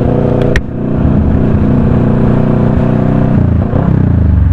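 Motorcycle engine idling steadily, with one short click about half a second in.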